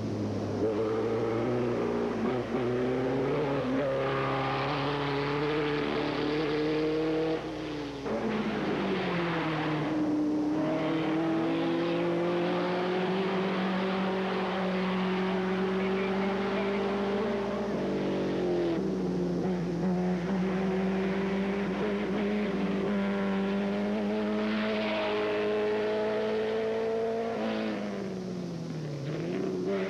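Hillclimb race car engines under hard acceleration uphill, the note climbing in pitch and dropping back sharply at each gear change or as one car gives way to the next.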